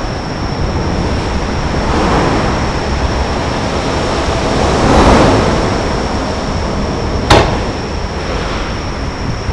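Fireworks display between shells: a steady rumble of outdoor noise with a faint, steady high whine, swelling near the middle, and one sharp firework bang about seven seconds in.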